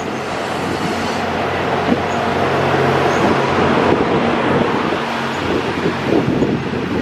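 JR West 87 series Twilight Express Mizukaze, a hybrid diesel-electric train, rolling slowly past close by as it departs. A steady low engine hum sits over the rumble of its wheels on the rails.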